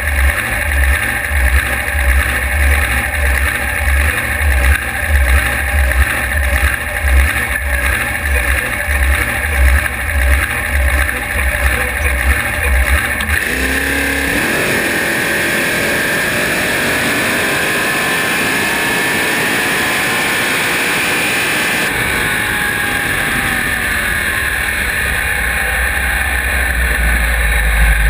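Drag race car's engine idling with a pulsing, loping rumble on the start line. About halfway through it launches at full throttle and runs hard with rising pitch. About eight seconds later the throttle is lifted, and it coasts down near idle.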